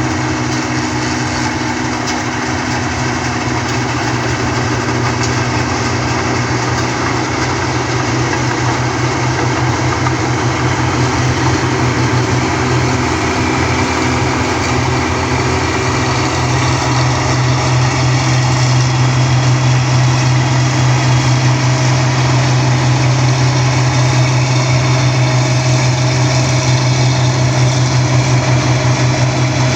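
Rice combine harvester's engine running steadily with a strong low hum, growing a little louder about halfway through.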